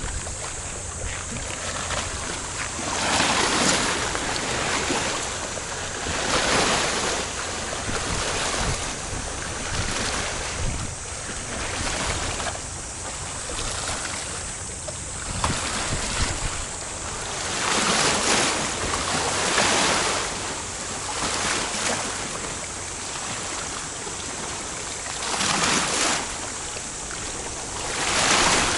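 Small sea waves washing on a rocky shore, swelling and ebbing every couple of seconds, with wind buffeting the microphone.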